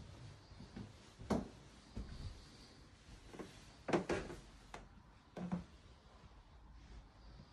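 A few irregular soft thumps and knocks from footsteps on a carpeted landing and a handheld phone being moved, with a louder cluster about four seconds in.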